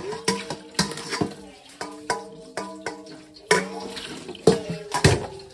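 Water running from a tap into a sink while a stainless steel pot is washed, clanking against the sink again and again and ringing after each knock, the loudest clanks a little past halfway and near the end.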